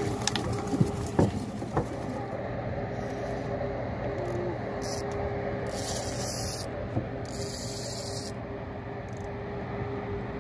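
Spinning reel being wound against a fish on a hard-bent rod, its gears clicking and rubbing, with a few sharp clicks near the start and bursts of hiss midway. A steady hum runs underneath.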